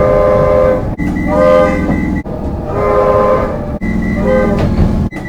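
Comeng electric suburban train's air horns sounding a run of short blasts, each with several tones at once, over the rumble of the train, cut abruptly from one recording to the next about four times.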